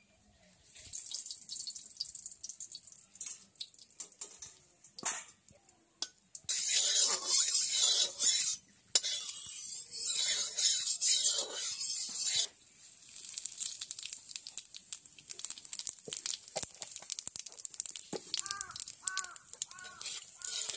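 Hot oil sizzling in an aluminium kadai, with dried red chillies frying in it. The sizzle starts faint, turns loud for several seconds in the middle, then settles to a light crackle while a metal spatula scrapes and stirs the pan.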